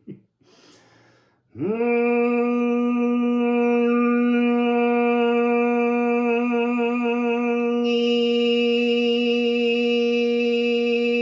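A man's voice toning one long, steady note. It starts with a quick upward scoop about a second and a half in, holds the same pitch for about ten seconds, gains a bright, buzzy upper layer about eight seconds in, and cuts off.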